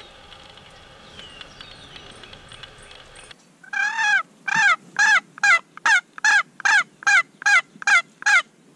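Wooden turkey box call worked in a run of about a dozen hen yelps, roughly two to three a second, each note rising then falling in pitch. Faint bird chirps come before it, in the first few seconds.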